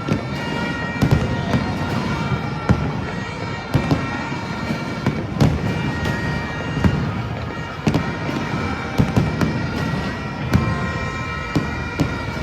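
Aerial fireworks going off in an irregular string of bangs and crackles, several a second at times, over background music with sustained tones.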